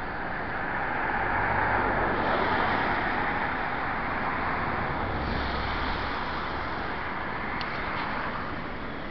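Swollen River Dee in flood rushing past, a steady noisy rush that swells a second or two in.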